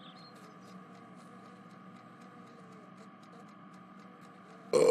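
Faint steady background ambience with light ticks. Right at the end a loud cartoon burp sound effect starts.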